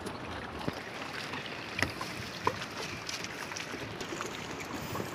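Steady low wash of water and wind around an outrigger fishing boat at sea, with a few faint knocks scattered through.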